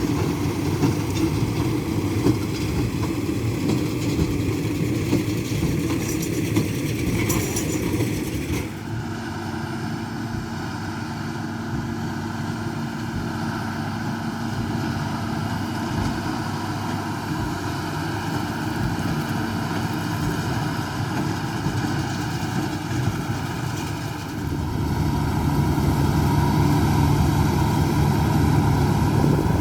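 Diesel engines of harvest machinery running steadily. The sound changes abruptly about nine seconds in and again near the end, where a louder, deeper engine hum takes over.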